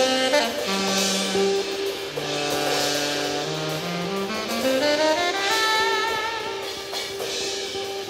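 Live jazz combo: a tenor saxophone plays low held notes, then climbs in a rising run about halfway through to a higher note held with vibrato. Electric guitar and a drum kit with cymbals play underneath.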